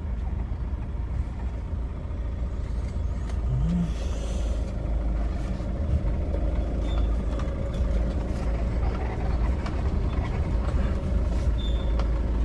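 Chevrolet Tavera driving on the road, a steady low engine and road rumble heard from inside the cabin. There is no differential bearing hum: the crown and pinion bearings are freshly replaced.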